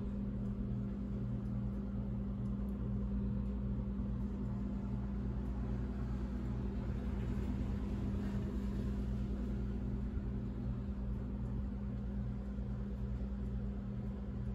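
Steady low hum of a kitchen appliance motor: one constant low drone with a faint regular pulsing beneath it.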